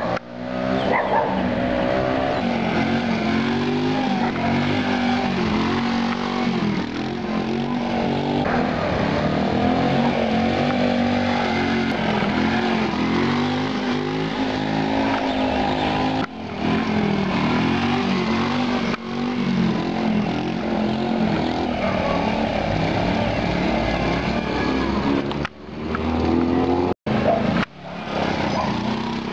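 Honda Z50 minibike's small single-cylinder engine running with the throttle opened and closed over and over, the revs rising and falling as the rider pulls wheelies. The sound breaks off abruptly a few times, especially near the end.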